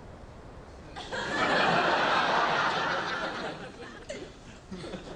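Sitcom studio audience laughing: a burst of crowd laughter that breaks out about a second in and dies away over the next few seconds.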